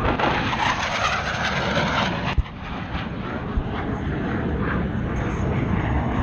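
Military aircraft engine roar as a plane flies over, a loud steady noise that swells in the first couple of seconds. About two and a half seconds in there is a sharp click and the level drops.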